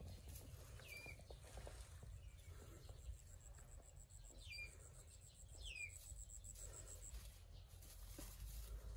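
Faint outdoor background: a bird gives three short falling chirps, one about a second in and two more around the middle, over a thin, high, steady insect trill and a low rumble.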